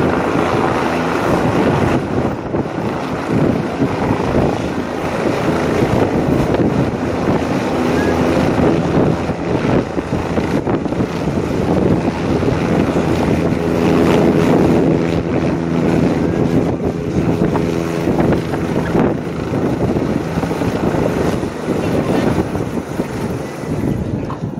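Helicopter coming in to land on a pier helipad, its rotor heard at a distance under heavy wind noise on the microphone. A steady hum of evenly spaced tones holds through the middle stretch while it sits on the pad.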